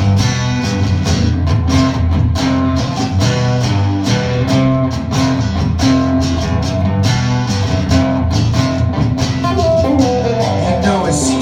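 Live band playing an instrumental stretch of a rock song: guitars strummed and picked over a bass line and a steady beat.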